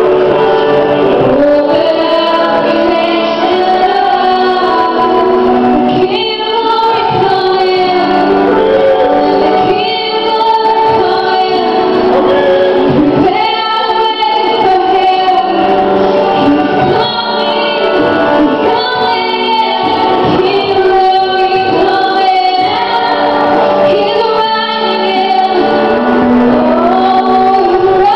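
Live worship music: a band playing while several singers sing together, a woman's voice prominent, in a long continuous stretch with no pause.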